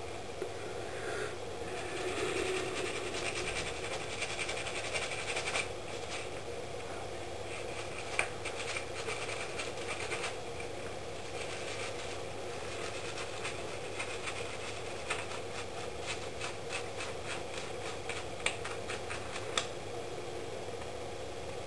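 Toothbrush bristles scrubbing Dettol-softened paint off a small plastic miniature held in a wet rubber-gloved hand, a rapid run of short scratchy strokes over a steady background hum.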